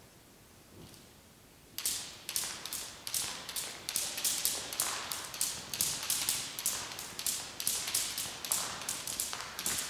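Two jump ropes turned in a Chinese wheel, slapping the floor in a quick, even rhythm of about two to three slaps a second, starting about two seconds in.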